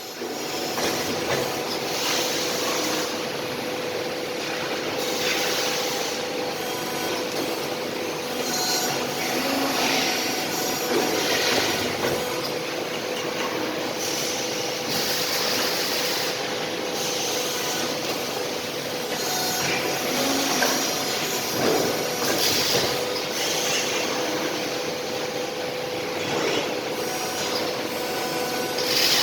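CNC tube bending machine with cutting and punching running: a steady hum with repeated noisy surges every few seconds.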